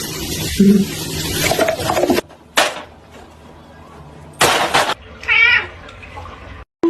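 Domestic cat meowing: a short wavering meow near the end, after two brief bursts of noise.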